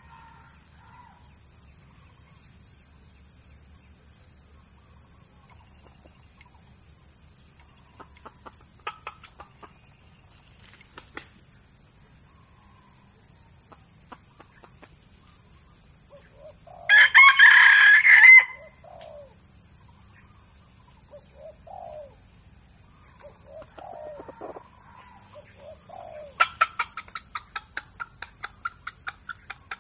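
Red junglefowl rooster crowing once, a short crow of about a second and a half a little past the middle. Soft low clucks come here and there, and near the end a quick run of clicking notes slows and fades.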